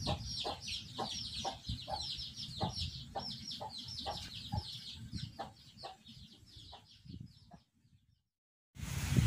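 Brood of village chicks peeping without pause, short high falling cheeps several a second, over the mother hen's low, evenly spaced clucks. Both fade out about seven seconds in, and after a short silence wind noise on the microphone starts near the end.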